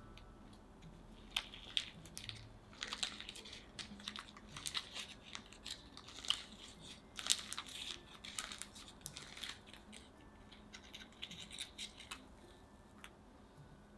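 Pleated paper cupcake liner crinkling and tearing as it is peeled off a soft steamed cake, in irregular rustles and crackles that start about a second in and die away near the end.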